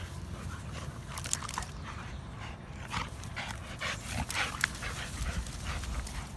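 A bully-breed dog panting hard while straining, with scattered short scuffs and clicks.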